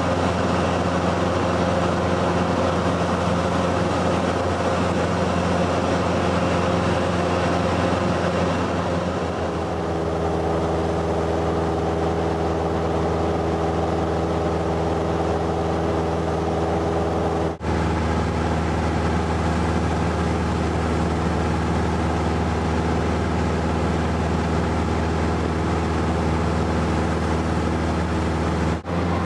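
Cabin noise of a Cessna 172N Skyhawk in flight: its four-cylinder Lycoming engine and propeller drone steadily, the pitch of the drone shifting slightly about ten seconds in. The sound cuts out for an instant twice.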